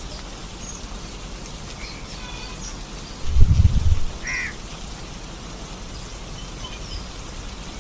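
Steady rain falling, with a bird calling a couple of times in the middle. Just before the second call comes a brief, deep low rumble, the loudest sound.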